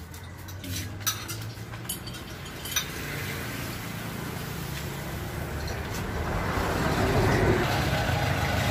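A motor vehicle's engine drawing closer and growing steadily louder, settling into an idle, as a vehicle pulls in to have its tires filled with air. A few sharp clicks in the first three seconds.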